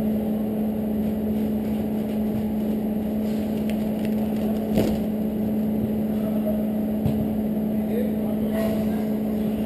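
A steady, unchanging hum over a dense low rumble, with faint distant shouts of football players and a single sharp knock about halfway through.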